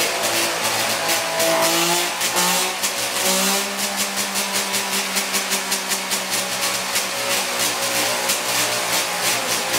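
DKW MTZ 1000cc three-cylinder two-stroke race engine running on an engine dyno. The revs rise and fall for the first few seconds, then settle and are held steady.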